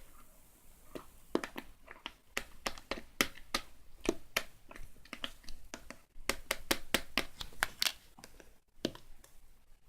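Hands tapping and handling small objects: a run of irregular sharp clicks and taps, several a second, with a brief pause about six seconds in.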